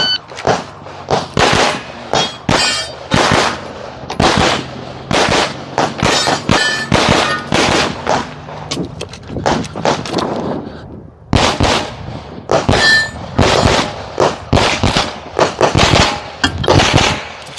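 Shot timer beep, then a fast string of 9mm pistol shots from a CZ Shadow 2, fired singly and in quick pairs, during a USPSA stage run. The shooting stops for about a second a little past the middle, then resumes.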